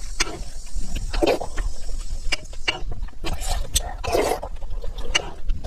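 Close-miked eating sounds: wet chewing, smacking and slurping, with sharp mouth clicks throughout and several louder slurping swells.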